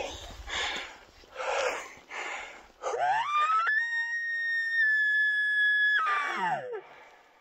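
An elk bugle: a pitch that slides up into a long, high, steady whistle held for about two seconds, then slides back down. It is preceded by a few short breathy puffs.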